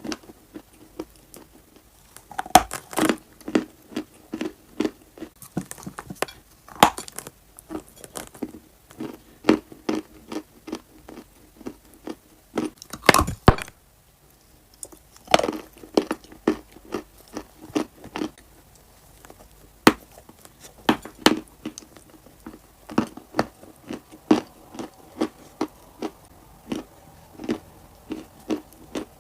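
A person biting and chewing crunchy clay close to the microphone: a long run of sharp crunches and crackles with short pauses between bites. The densest crunching comes just after 2 s and again around 13 s.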